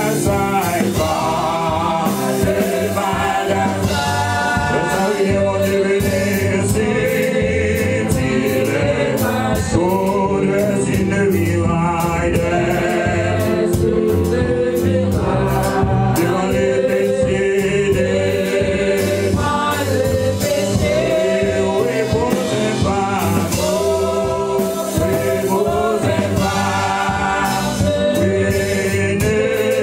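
Worship team singing a gospel praise song, a man's lead voice with women's voices, over accompaniment with a steady beat.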